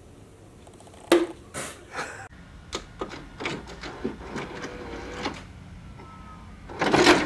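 Video cassette recorder ejecting a tape: a run of mechanical clicks and clunks, then a louder clattering burst near the end.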